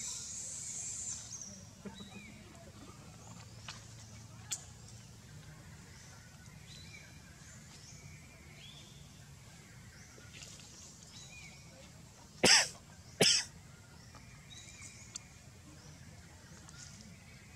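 Two short, loud coughs less than a second apart, about twelve seconds in, over a quiet background.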